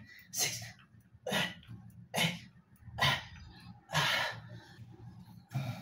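A man's forceful breaths in time with his push-ups, one sharp puff about every second, over a steady low hum.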